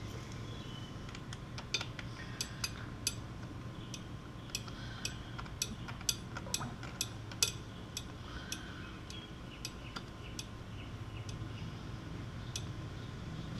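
Light metallic clicks and clinks, irregular and most frequent in the first half, from handling a CO2 tire inflator and its cartridges at a motorcycle wheel's valve stem, with a faint low hum underneath.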